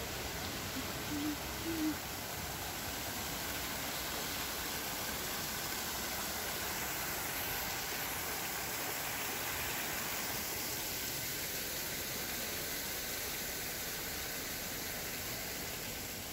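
Small artificial waterfall splashing down a rock face: a steady rush of falling water. Two brief low hoots sound about a second in.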